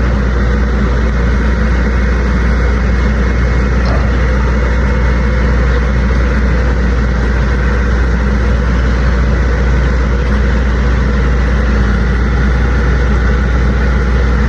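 Tractor engine running steadily at a constant low speed.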